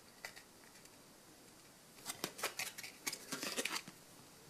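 Faint crisp clicks and rustles of a thin cardboard trading card being handled and turned over in the fingers, a quick cluster of them from about two seconds in.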